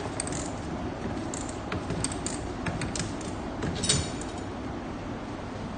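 Bicycle pedal and chain drive of a homemade pedal-powered washing machine being turned, giving irregular metallic clicks and rattles, the loudest about four seconds in.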